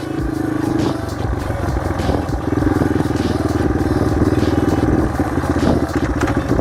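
Small dirt bike engine running hard at steady revs, easing off briefly about a second in, then held again for a few seconds.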